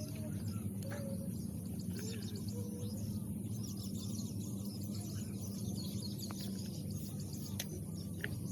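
Birds chirping in short scattered calls over a steady low hum of outdoor background noise.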